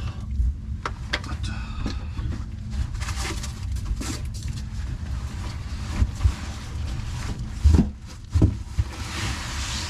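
Scattered knocks and clicks of hand tools and fittings being handled at a sink, over a steady low hum, with a few louder knocks near the end.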